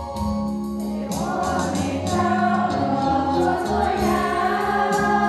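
Women's choir singing a gospel hymn with organ accompaniment. The organ holds steady chords at first, and the choir's voices come in about a second in.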